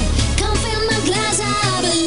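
Music with a steady beat and a gliding melody line.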